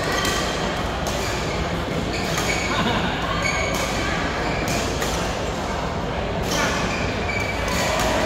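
Racket strikes on shuttlecocks across several badminton courts, sharp hits every second or so in a reverberant hall, over a steady wash of players' voices.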